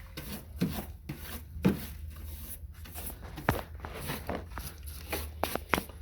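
Irregular scraping and rubbing with scattered light knocks and sharp clicks from hand work on an old window opening, over a steady low hum.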